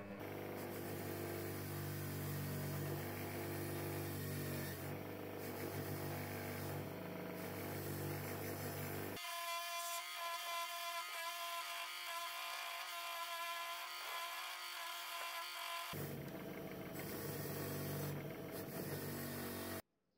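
Bench grinder motor running steadily with a wire wheel spinning on its spindle. For several seconds in the middle, a rusty steel chain is held against the wheel to wire-brush off the rust: the low hum gives way to a higher, rougher scraping sound. The sound cuts off suddenly near the end.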